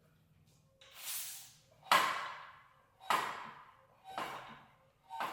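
Background music with a heavy beat, one strong hit about every second, each fading away.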